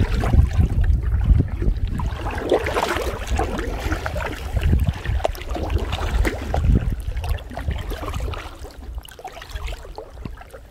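Water lapping and splashing against a plastic kayak's bow as it is paddled across the lake, over a steady low rumble; the sound fades a little toward the end.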